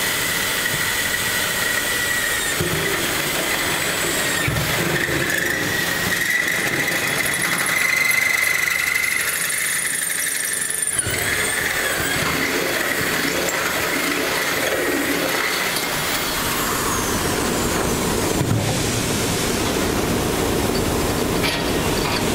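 Electric drill with a long bit boring down through a pickup truck's bed floor, making mounting holes for an auxiliary fuel tank. A steady high-pitched squeal rides over the drill's running for about the first ten seconds, then gives way to a rougher grinding.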